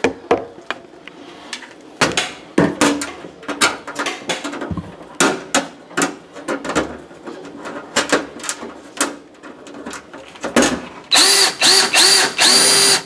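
Power drill/driver running screws into the steel outer panel of a wall oven, in three short runs near the end. Before that come a series of sharp metallic clicks and knocks as the sheet-metal panel and screws are handled.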